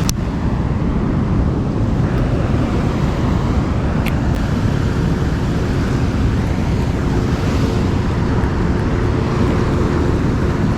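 Steady rush of water pouring over a large dam spillway, a loud, even roar with no let-up.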